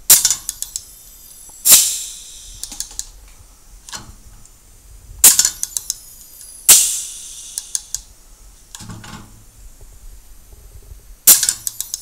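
Homemade pneumatic crimper cycling: a hand-worked air valve drives an air cylinder that closes a hand crimper with a sharp clack and a few quick clicks, and about a second and a half later a short hiss of air fades out as it releases. This happens twice, and a third clack comes near the end.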